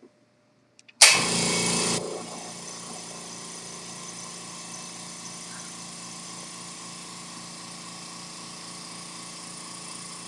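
California Air Tools Ultra Quiet air compressor switched on: after a couple of small clicks it starts with a loud, noisy burst lasting about a second, then settles into a steady, even running hum.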